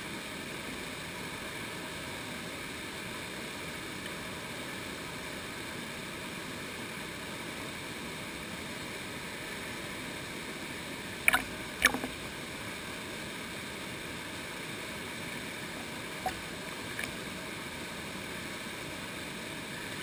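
Fast, shallow stream water rushing over rocks: a steady, even rush. About eleven seconds in come two sharp knocks about half a second apart, and two fainter ones a few seconds later.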